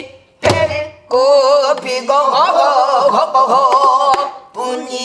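A woman sings a held, wavering pansori-style line in full voice, with its pitch bending and shaking. About half a second in, a single stroke lands on a buk, the studded Korean barrel drum.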